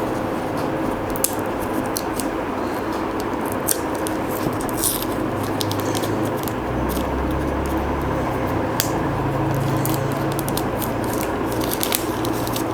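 Crackling, rustling and scraping of a smartphone retail box and its plastic wrap being handled and opened, in many short irregular clicks, over a steady background hum.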